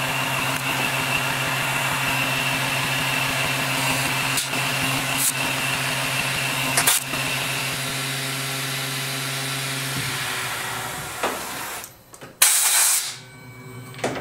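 CNC mill spindle running a boring head through a steel part: a steady machine hum with a high tone and a few sharp clicks. About twelve seconds in, the running stops and a short loud hiss follows.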